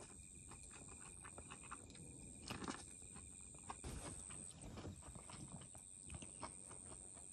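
Faint steady high-pitched chirring of autumn evening insects, with scattered light clicks and knocks from hands handling things at a camp table as a grilled corn cob is picked up.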